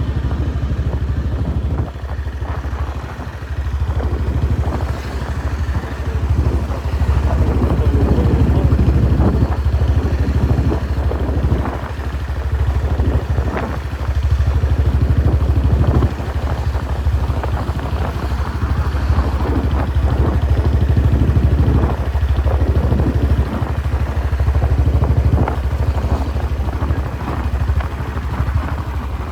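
Royal Enfield Bullet Standard 350 single-cylinder engine running through a short-bottle silencer, a loud low exhaust thump whose level rises and falls several times.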